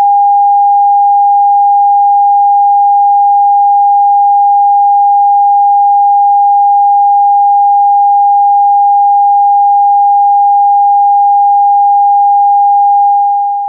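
Steady pure sine test tone of the NRK PM5544 test card transmission, a single unchanging mid-pitched note that fades out near the end.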